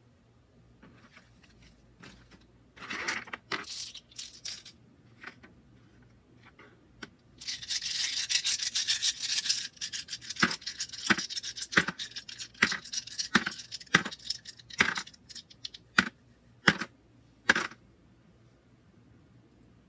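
Paper being handled as guidebook pages are turned: a few brief rustles, then a longer dense rustle. After that comes a run of short sharp flicks, roughly one every half-second, as pages are flipped one after another.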